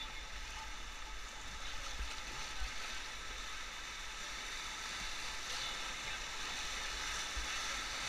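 Steady rushing of whitewater rapids around a river raft, with a low, uneven rumble underneath.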